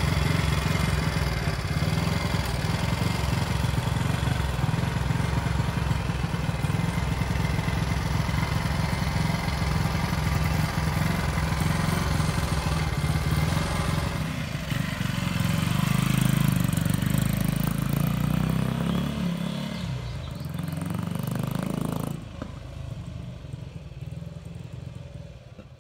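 Ducati Monza Junior 160's single-cylinder four-stroke engine running steadily at idle, then revving up and fading away as the bike pulls off, with a sudden drop in level near the end.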